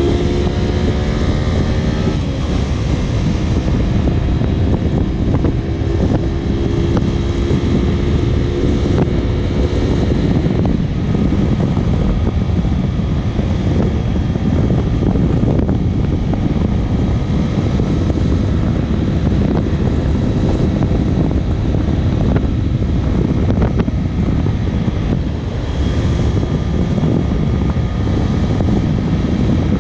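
Honda VTR250 V-twin motorcycle engine running under way, mixed with heavy wind rush. The engine note drops in the first couple of seconds as the revs come down, then the engine and wind run on steadily.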